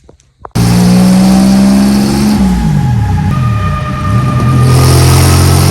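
Honda-swapped Toyota MR2 engine running loud and hard, cutting in abruptly about half a second in.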